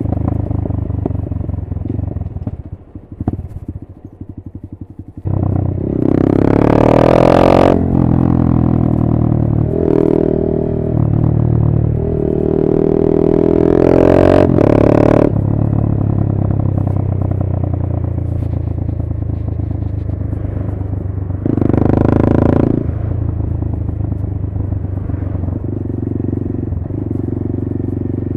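Honda MSX125 (Grom) single-cylinder four-stroke engine breathing through a TYGA full stainless race exhaust with carbon can, heard from the rider's seat while riding. It eases off about three seconds in, then pulls hard from about five seconds in, with the revs climbing and dropping in several steps as it goes up through the gears, and gives another short burst of throttle near the two-thirds mark.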